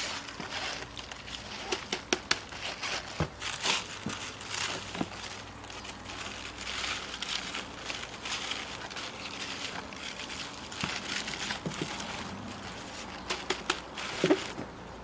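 Halved napa cabbages handled by hand as salt is worked in between the leaves: crisp rustling and crackling of the leaves, with sharp clicks scattered through it.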